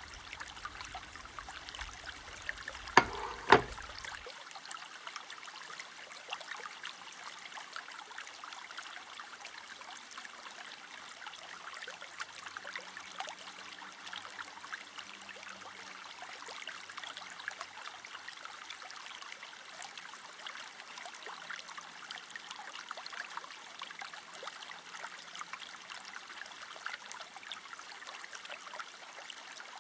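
Food sizzling and crackling in hot oil in a frying pan, a steady hiss dotted with tiny pops. Two sharp knocks sound about three seconds in.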